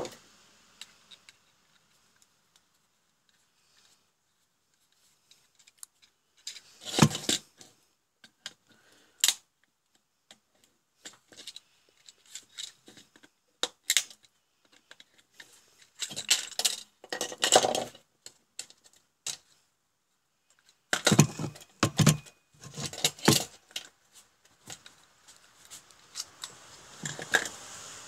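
Plastic case of an electronic module being pried and cracked open with a screwdriver: sharp clicks, snaps and scraping in bursts, separated by quiet stretches. There is a near-silent stretch for the first few seconds.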